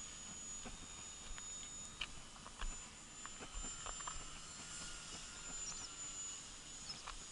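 Faint, steady high-pitched whine of an Art-Tech Texan T-6 RC plane's brushless electric motor and propeller in flight, with a few scattered clicks.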